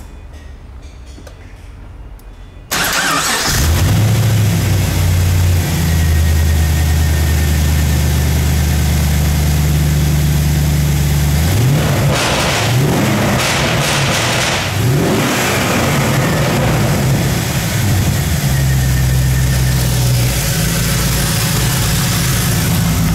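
A 2004 Pontiac GTO's 5.7-litre LS1 V8 starts up about three seconds in and settles into a fast idle. Around the middle it is revved several times, rising and falling, then it returns to a steady idle that drops a little lower near the end.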